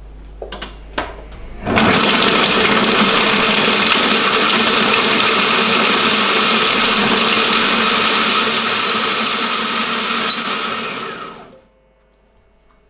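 Monsieur Cuisine Connect food processor chopping cubes of hard cheese at speed 8: after a couple of clicks, the blade starts abruptly about two seconds in, runs loud and steady for about ten seconds, and winds down near the end.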